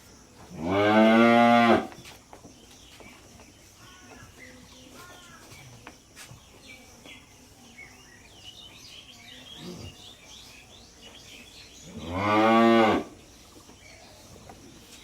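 Cow mooing twice, each call a loud, drawn-out moo of about a second, the second coming about eleven seconds after the first.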